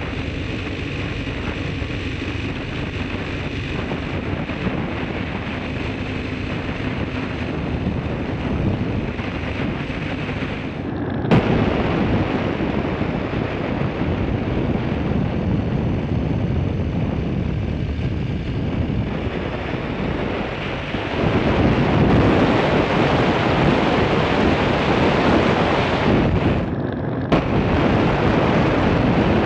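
Wind rushing over the microphone of a camera on a moving motorcycle, with the bike's engine and road noise running underneath. The rush breaks off briefly twice and grows louder about two-thirds of the way through.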